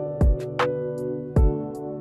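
Background music with a steady beat: a deep kick drum about once a second, sharp snare-like hits between, over held synth chords.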